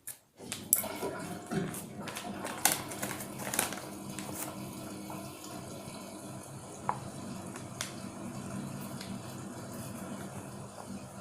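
Water running steadily from a kitchen tap, with a few sharp clinks of a spoon or cup in the first few seconds.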